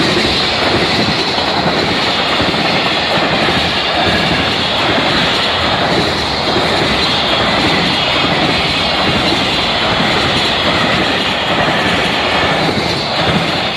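Freight train's wagons rolling past close by, their wheels clattering over the rails in a loud, steady rush; the train is hauled by an EF210 electric locomotive.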